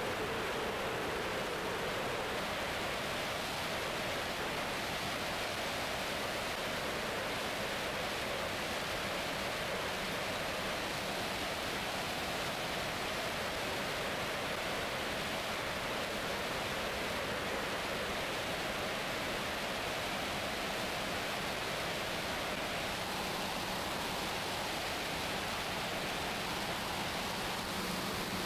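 Steady rushing noise of a DJI Phantom FC40 quadcopter in flight, its propellers and the passing air heard from the camera on board, with a faint steady low hum underneath.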